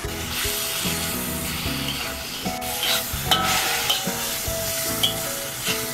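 Shiitake slices and fresh cordyceps flowers sizzling in a hot wok while a metal spatula stirs and tosses them, knocking and scraping against the wok now and then.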